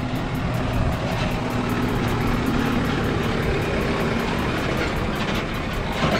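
Farm tractor's diesel engine running steadily as it drives past close by, towing a wooden passenger wagon.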